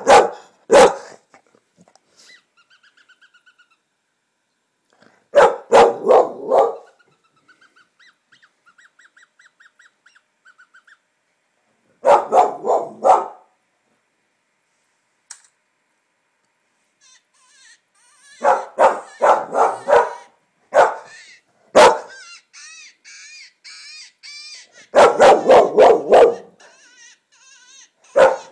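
English Springer Spaniel barking in repeated bursts of several loud barks, about half a dozen bursts. It is reacting to a predator call from a coyote-hunting video on a laptop, which it takes for an animal. Fainter pulsing tones from the laptop come in between the bursts.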